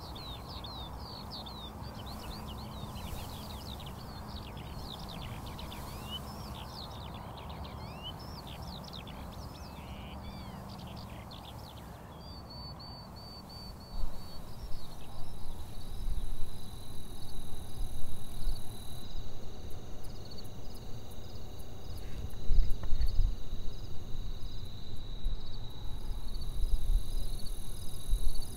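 Many short chirping calls, like birdsong, for the first part, then a steady, evenly pulsing high insect trill like a cricket's. About halfway through, a loud, uneven low rumble comes in under the trill.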